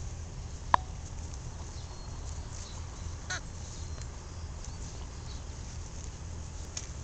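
A few short, sharp animal cries, one just under a second in and another about three seconds in, over a steady low rumble.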